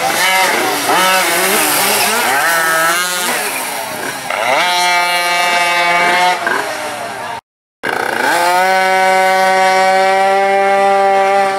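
Pocketbike's small two-stroke engine revving up and down in quick swings as it weaves through a cone slalom. It cuts off for a moment about two-thirds of the way in, then climbs and holds a steady high rev.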